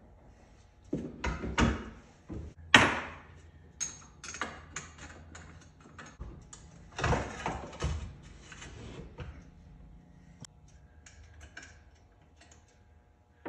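Plastic and metal parts of a two-stroke power hoe and hand tools knocking and clattering on a wooden workbench as the machine is taken apart, in irregular bursts. The loudest knock is about three seconds in, with a longer clatter around seven seconds.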